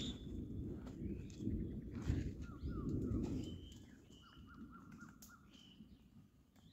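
Footsteps scrambling over loose stones and dry pine needles on a steep slope, crunching and scraping, dying down about halfway through. Small birds chirp and whistle repeatedly throughout, with a quick run of short chirps in the middle.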